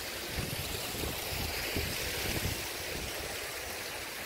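Steady rushing of water falling in an artificial waterfall, with wind buffeting the microphone in low rumbles.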